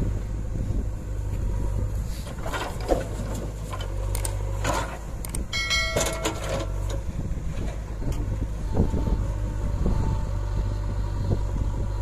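Diesel engine of a JCB backhoe loader running steadily as it digs soil, with scattered knocks and scrapes of the bucket in the dirt. A brief chime-like tone sounds about six seconds in.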